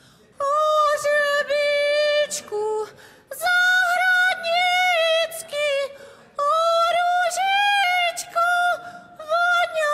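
A woman singing unaccompanied in a high voice. She holds long notes in several phrases, with short breaths between them; the first begins about half a second in.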